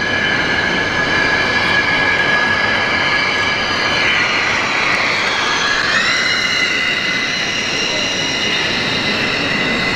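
Electric motor and gear whine of an RC model car over steady hall noise, the whine rising in pitch about six seconds in as the car speeds up.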